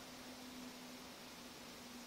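Faint steady hiss with a low steady hum underneath: room tone with no distinct event.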